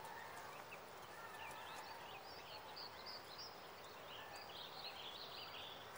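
Faint outdoor ambience: a soft background hiss with many small birds chirping and twittering in short, quick calls, and a few lower whistled notes.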